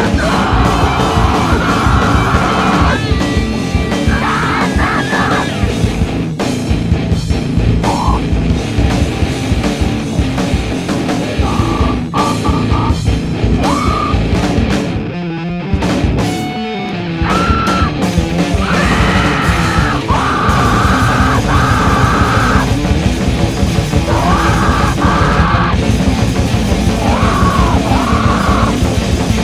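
Heavy metal song: a dense, loud full band with shouted vocals coming in and out. About halfway through, the band briefly thins out and drops in level before coming back in at full force.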